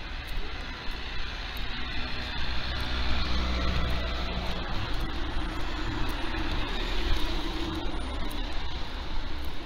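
Road traffic: cars driving past on a wet road, growing louder about three seconds in.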